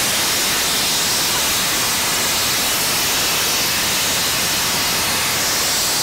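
A steam locomotive's safety valve blowing off steam with a loud, steady hiss. The speakers take it for the pressure relief valve lifting on an over-pressurised boiler.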